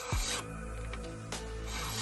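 Electronic background music with a steady deep bass, broken by two noise swells, each with a deep falling bass hit, one at the start and one about a second and a half in.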